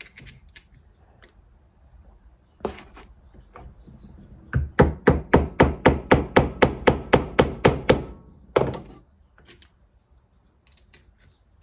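Rapid run of about seventeen sharp taps, roughly five a second, driving a seal home into a motorcycle fork leg to seat it fully; a single knock comes before the run and another just after it.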